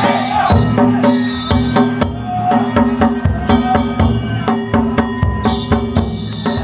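Danjiri festival float music: drums and ringing hand gongs beaten in a fast, steady rhythm by the players riding inside the float as it is pulled.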